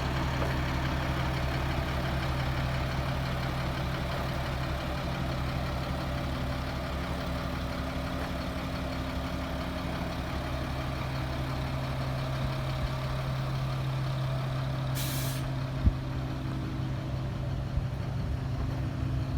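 Caterpillar 3126 diesel of a Freightliner FL80 boom truck idling steadily with the PTO engaged. About fifteen seconds in there is a short hiss of air, then a sharp click.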